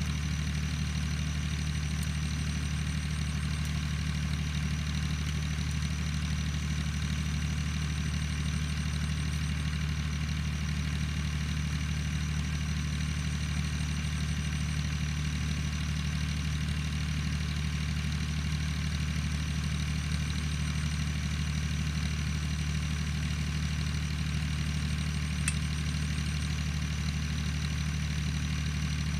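A steady low mechanical hum, like an engine or motor running at constant speed, unchanging throughout, with one sharp click about 25 seconds in.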